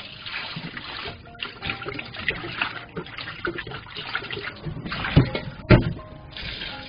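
Tap water pouring into a stainless steel bowl while hands swish and squeeze aged kimchi leaves in it, with irregular splashing. About five seconds in come two loud thumps, the running water breaks off briefly, and it starts again near the end.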